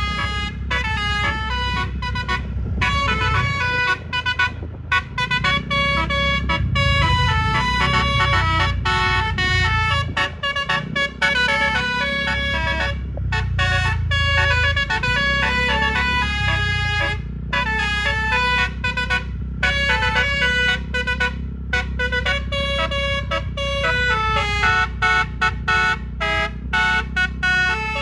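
A bus's telolet musical air horn (a DAF musical horn module) playing a fast melody of short, stepped horn notes, over a steady low rumble.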